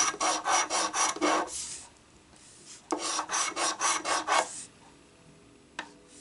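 A coin scraping the scratch-off coating from a paper lottery ticket in quick back-and-forth strokes, about six a second. Two bouts of scratching, the second starting about three seconds in and stopping a little past halfway, followed by quiet with a single faint click.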